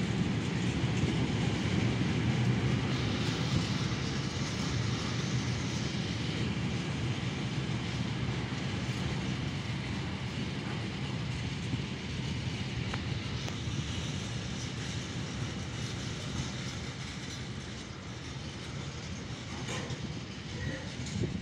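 Freight train of empty container flat wagons rolling past: a steady rumble of steel wheels on the rails that slowly grows quieter toward the end.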